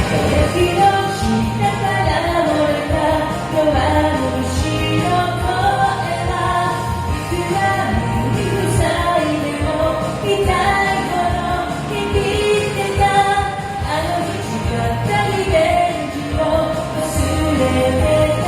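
A pop song with a lead singing voice over full band accompaniment and a steady beat.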